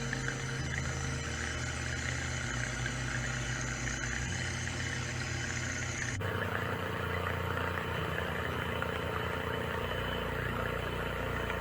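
A 540 20-turn brushed electric motor running steadily at about quarter throttle while partly submerged in water for break-in, as its brushes wear in against the commutator. The sound changes abruptly about six seconds in.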